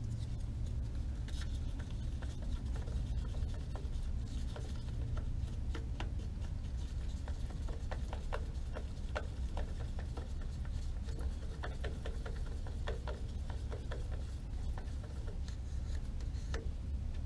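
Two-part epoxy being stirred by hand in a small plastic mixing cup: light scraping and irregular little clicks of the stirrer against the cup. A steady low hum runs underneath.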